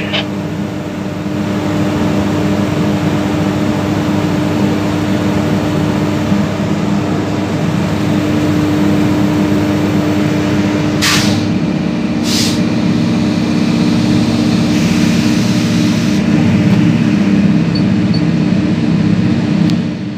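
Steady machine hum of a stationary locomotive heard from inside its cab, a constant low drone under a broad hiss of heavy rain and rushing floodwater. Two short sharp clicks come about eleven and twelve seconds in.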